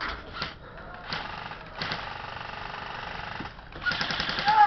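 Airsoft guns firing: a few single shots, then a long full-auto burst of rapid clicks about two seconds in, and a shorter, louder burst near the end.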